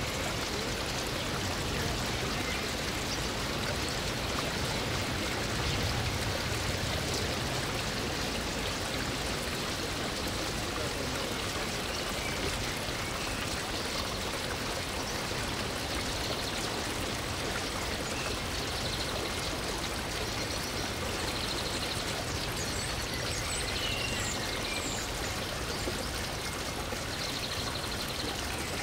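Steady rushing background noise, like running water, with a few faint high chirps in the second half.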